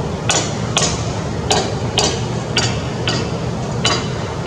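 A series of about seven sharp knocks, roughly two a second and not quite evenly spaced, over a steady low rumble.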